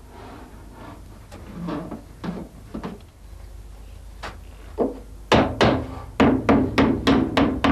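A run of sharp knocks on something hollow and wooden: a few scattered ones at first, then a quick regular series of loud blows about three a second from about five seconds in.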